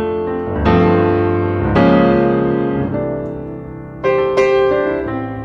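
Background piano music: chords struck about a second in, near two seconds, and twice around four seconds, each left to ring and fade.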